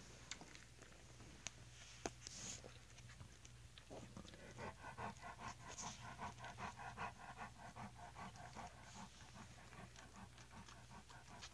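Adult English Mastiff panting, a quick even rhythm of about four breaths a second that starts about four seconds in and eases off near the end.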